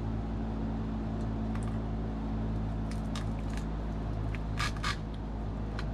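Light clicks and taps of hands handling steering-column parts and wiring, a few around the middle and two louder ones near the end, over a steady low hum.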